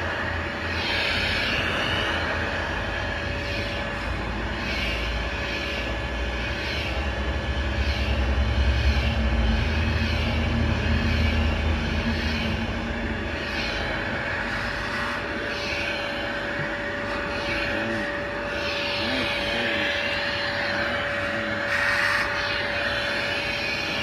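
A low engine rumble that swells to its loudest about halfway through and then fades, with a steady hum throughout.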